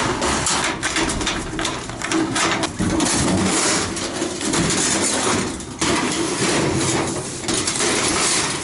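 Sheet-metal fluorescent light fixtures scraping and clattering against each other as they are pulled and shifted around in a scrap bin, with a run of knocks and bangs.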